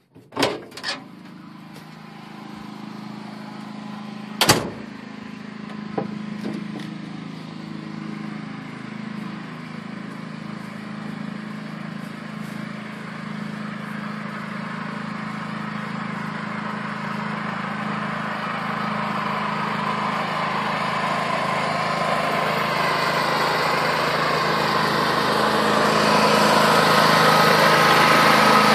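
Elitech БЭС 6500 ЕМ petrol generator, an air-cooled single-cylinder four-stroke engine, running steadily under its load cable, growing louder as it is approached. Knocks near the start and a loud bang about four and a half seconds in, like a door being opened and shut.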